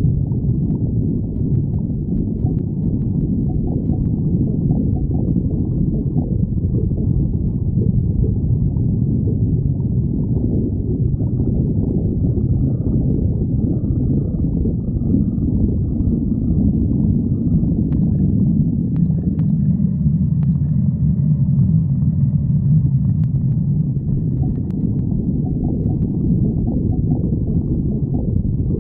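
A person's stomach growling and gurgling in a continuous low rumble, with fainter higher-pitched squeaky gurgles through the middle stretch.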